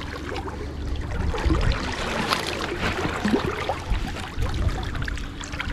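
Water splashing and lapping as a hooked trout is played and drawn in at the surface, with a fluctuating low rumble underneath.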